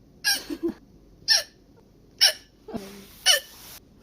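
A young woman hiccuping four times, about once a second, each hiccup a short, sharp squeak that drops in pitch: a persistent bout of hiccups.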